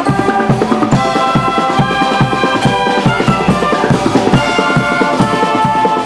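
Shawm band playing Martin shawms: held, reedy chords over a steady drum beat.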